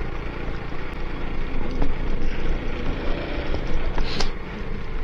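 Motorcycle engine running at low road speed, mixed with wind and road noise on the bike-mounted camera's microphone, with a short burst of noise about four seconds in.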